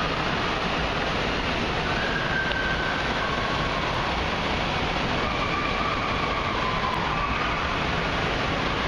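Loud, steady roar of an indoor water park: rushing and splashing water echoing through a large hall, with a few faint distant voices calling out over it.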